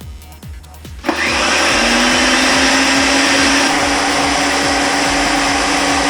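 An electric power tool's motor starts suddenly about a second in and runs steadily at full speed, with a steady hum over a loud hiss.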